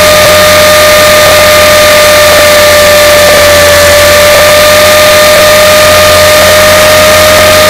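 Electric RC helicopter, an Align T-Rex 450SE V2, in steady flight: a constant high whine from the motor and gears holds one pitch over loud, even hiss.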